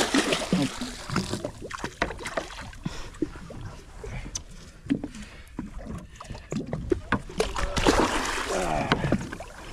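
Water splashing hard as a gaff is driven into a hooked longtail tuna at the boat's side, followed by repeated sharp knocks and slaps as the fish thrashes. A second heavy splash comes near the end as the tuna is hauled up out of the water.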